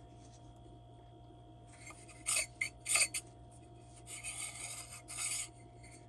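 Scraping and rubbing of the diesel heater's blower motor parts as they are handled and adjusted after press-fitting: two short scrapes about two and three seconds in, then a longer rub near the end.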